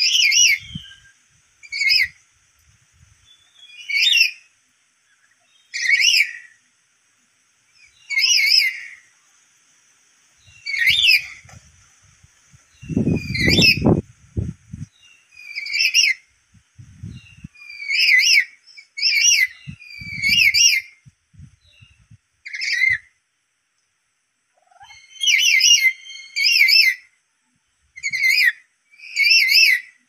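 Black-capped lory giving loud, shrill calls, each a short burst bending up and down in pitch, repeated about every two seconds and crowding closer together near the end. The calls are those of a lory provoked by a lure call. A low thump or rumble comes about halfway through.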